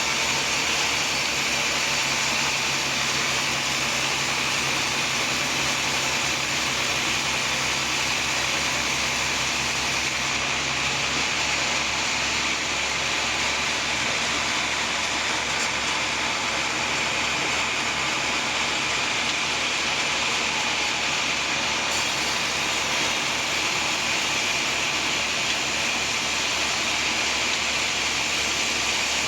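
Sawmill running steadily, its saw cutting through a large teak log with an even, continuous noise. A faint low hum underneath drops out about eleven seconds in.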